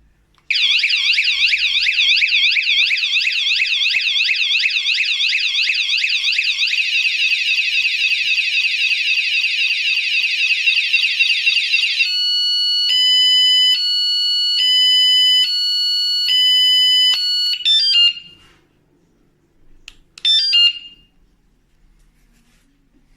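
Electronic anti-theft bike alarm siren sounding at full volume. It cycles through tones: first a fast warbling wail, then a quicker trill, then two tones alternating about once a second. It cuts off abruptly, and a short chirp follows a couple of seconds later.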